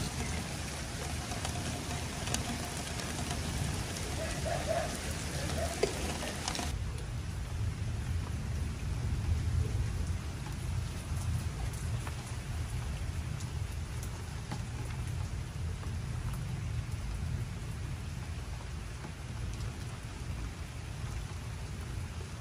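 Steady rain with a continuous low rumble of thunder. A brighter hiss of splashing water cuts off abruptly about seven seconds in, leaving mostly the rain and the low rumble.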